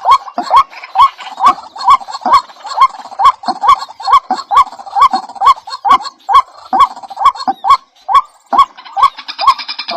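A bird calling over and over, short upward-hooking notes about two a second, with a brief pause about eight seconds in.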